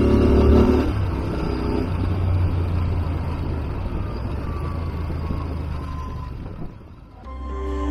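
Royal Enfield Interceptor 650's parallel-twin engine through Enfield Precision silencers with the baffles in, heard from the rider's seat at road speed. It pulls strongly for about the first second, then settles into a steadier, quieter run mixed with road and wind noise, and fades out near the end.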